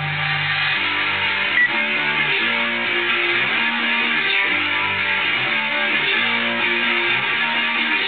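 Trance music playing, with a plucked, guitar-like melody stepping from note to note.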